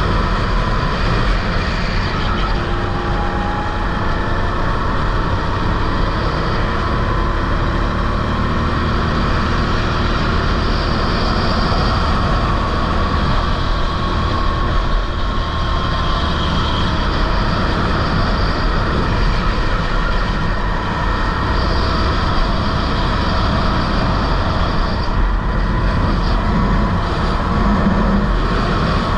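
Rental go-kart engine running at race pace, its pitch sliding up and down as the kart speeds up and slows, over a constant heavy rumble.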